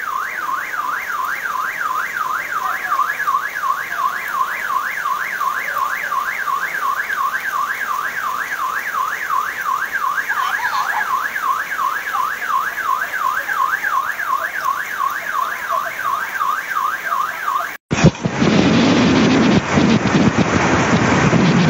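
A car alarm sounding a steady warbling siren, its pitch rising and falling about three times a second. It cuts off about 18 seconds in, and a louder, steady hiss of heavy rain follows.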